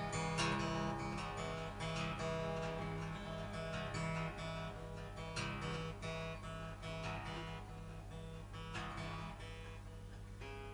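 Acoustic guitar playing the instrumental ending of a song, without singing, getting slowly quieter.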